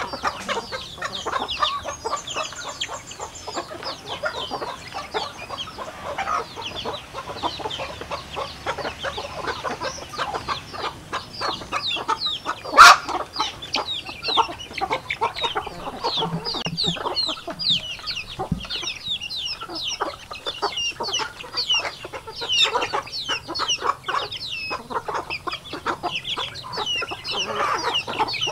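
A flock of chickens clucking and chattering while feeding, with many short high peeps from chicks among them. One sharp click about 13 seconds in stands out as the loudest sound.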